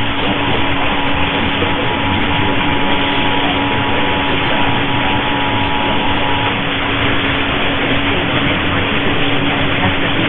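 AM radio static: a loud, steady hiss of a weak signal received over the air. Under it, the faint two-tone EAS attention signal sounds until about two-thirds of the way through, with a steady low tone running underneath.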